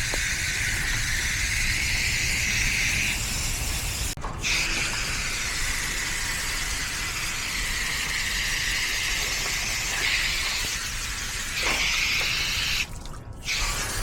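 Garden hose spray nozzle hissing as water is sprayed through a dirty air-conditioner condenser coil to rinse out lint. The spray stops briefly about four seconds in and again near the end.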